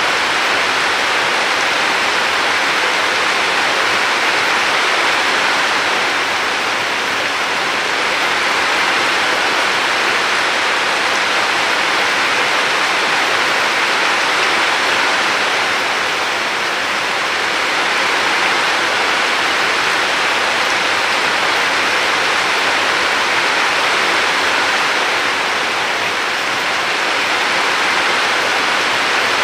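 River water flowing: a steady, even rush of water that swells and eases gently every several seconds.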